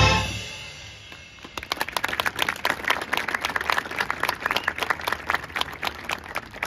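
A marching band's brass and drums cut off on a held chord that rings away within the first second. About a second and a half in, audience applause begins, a steady patter of many hand claps.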